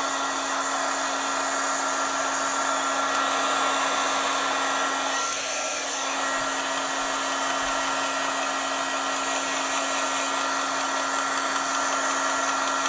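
Wagner heat gun running steadily with a continuous blowing rush, a low hum and a thin high whine, drying wet sprayed ink on thick cardstock.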